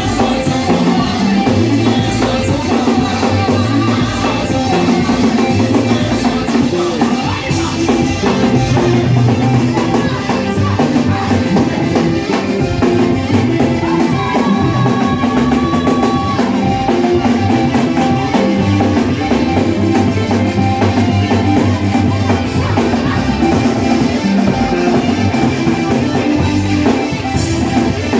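A church worship band playing music, led by a drum kit with bass drum and rimshots, steady and loud throughout.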